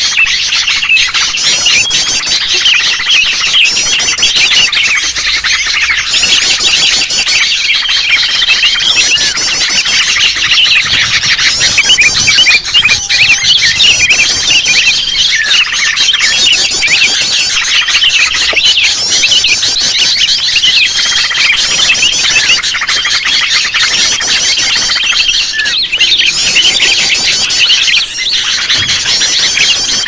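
Loud, dense chorus of many overlapping sooty-headed bulbul calls, chattering without a break, with a short steady whistle every several seconds. It is a bird-catcher's lure track of agitated bulbuls, meant to draw wild bulbuls in.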